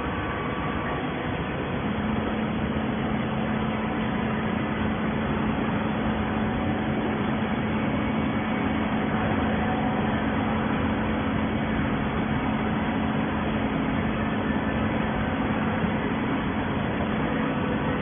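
Horizontal hydraulic baler running, a steady machine noise with a steady hum that sets in about two seconds in.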